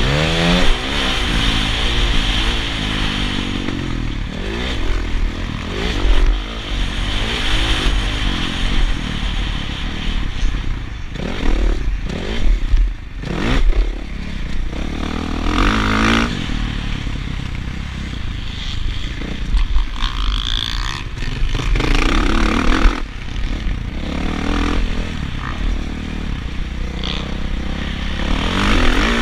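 Motocross dirt bike engine revving hard as the bike is ridden round a dirt track, its pitch repeatedly rising and falling as the throttle opens and closes.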